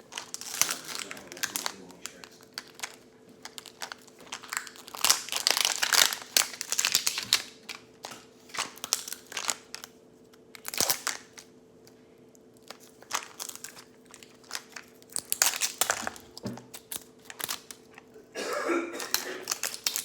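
Thin plastic wrapping of a Mini Brands ball crinkling and tearing in irregular bursts as the layers are pulled open by hand.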